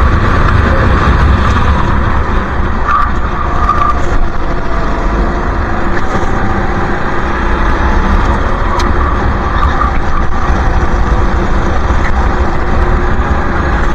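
Go-kart engine running flat out, heard from an onboard camera on the kart, a loud steady racket with a heavy low rumble and a faint engine whine that wavers in pitch through the corners.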